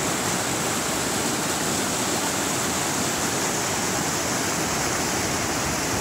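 Fast-flowing mountain creek rushing over rocks in whitewater, a loud steady rush of water.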